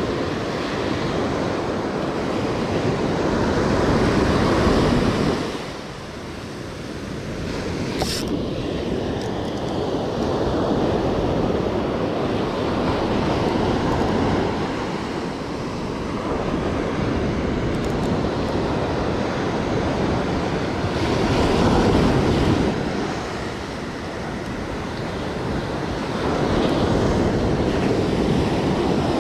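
Small ocean surf breaking and washing up a sandy beach, swelling and easing wave by wave, with wind buffeting the microphone. A single sharp click about eight seconds in.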